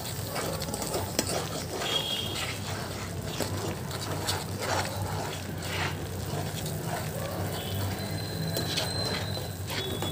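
A spatula stirring thick semolina sheera in a pan as the milk cooks off, with irregular scrapes and taps against the pan over a low steady hum.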